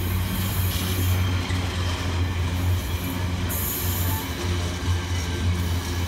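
Intermodal container flat wagons of a freight train rolling past, a steady low rumble and rattle of wheels and bogies on the rails.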